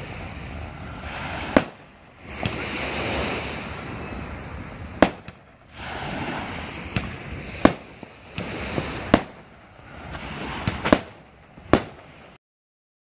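Aerial fireworks going off: a string of sharp bangs every second or two, the loudest about six of them, with crackling and hissing between the bursts. The sound cuts off suddenly near the end.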